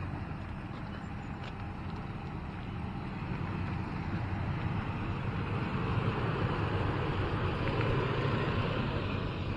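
Toyota Land Cruiser Prado 120's V6 engine and tyres driving along a dirt 4WD track, a steady rumble that grows louder through the second half.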